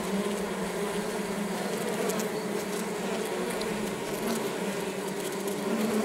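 Honeybees buzzing steadily inside a top-bar hive, close to the camera: an even, unbroken hum of many wings.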